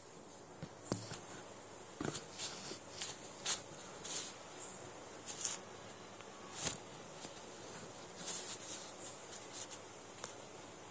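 Scattered light clicks, taps and short rustles of things being handled close to the microphone.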